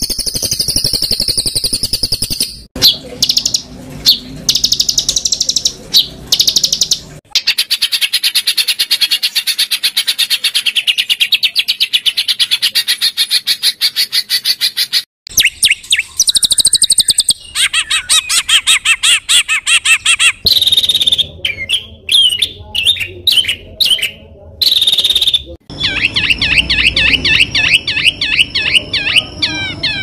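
Recorded songbird songs spliced together as masteran, the rough, rapid song material used to train competition cage birds to copy. Different birds' rapid repeated notes, harsh chattering trills and whistled sweeps follow one another, each cut off abruptly after a few seconds.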